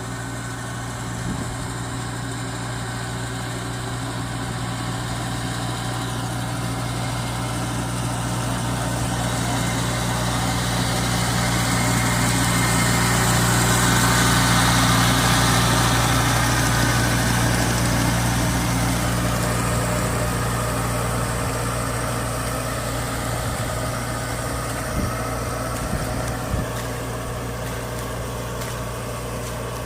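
Kubota rice combine harvester's diesel engine running steadily, its low hum growing louder to a peak about halfway through and then fading again. A few short knocks sound near the end.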